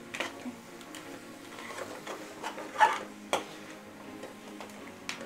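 Metal spoon stirring crab masala in a steel pan: scraping with a few sharp clinks against the pan, the loudest just under three seconds in and another soon after, over a steady low machine hum.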